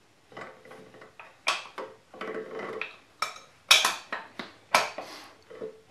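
Metal clinking and rattling from the exposed rocker arms and pushrods of an A-series 1098 engine's valve gear being worked by hand, with several sharp clinks, the loudest a little past the middle.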